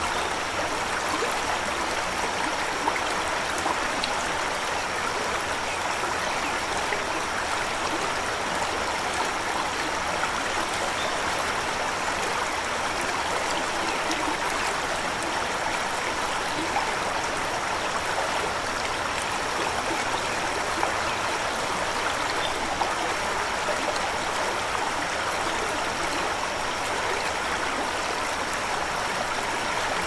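A shallow river flowing and trickling over stones: a steady, even rush of water.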